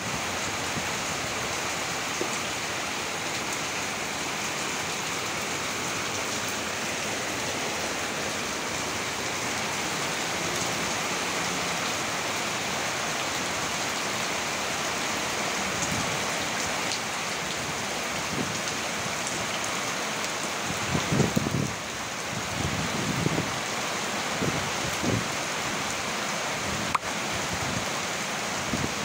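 Heavy rain pouring steadily onto a flooded yard, with several low thumps over the last third.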